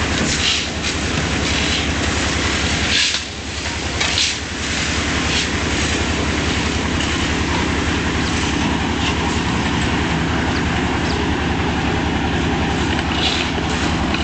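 An engine running steadily with a rattling clatter, dipping briefly about three seconds in.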